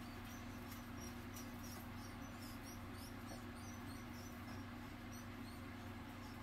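Faint, rapid high-pitched squeaks, several a second, from a live rodent held in a snake's constricting coils, over a steady low hum.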